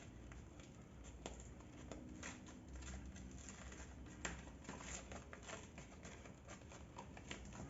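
Faint handling noises: scattered small clicks, taps and rustles as parts of a belt-and-disc sander are handled during assembly, with a slightly louder tap about four seconds in.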